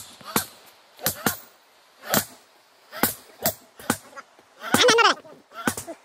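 Iron crowbar striking and chipping at a rock face, a series of sharp, irregular knocks about one or two a second.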